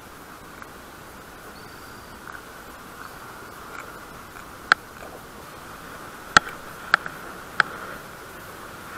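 Four sharp clicks in the second half, over a faint steady hiss, from hands handling a small fish and fishing tackle.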